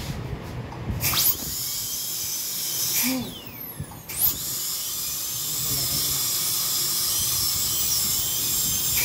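High-speed dental drill whining as it cuts the upper front teeth. It starts about a second in, winds down briefly around four seconds, then runs again until it winds down at the end.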